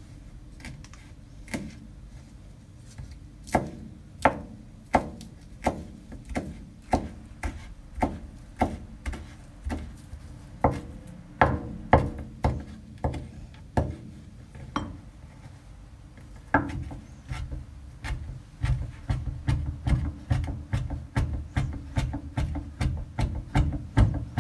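Kitchen knife chopping food on a cutting board: separate cuts about one a second at first, then quicker steady chopping at three or four strokes a second from about three-quarters of the way in.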